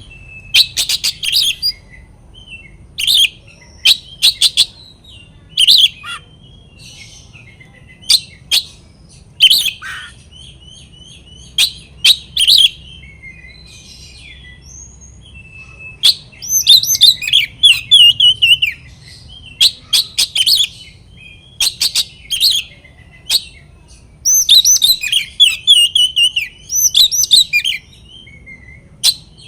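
Oriental magpie-robin (kacer) singing loud, varied phrases of clear whistles and fast chattering trills, broken by short pauses, with longer rapid runs about halfway through and near the end. It is a male in full challenging song, calling out for a rival.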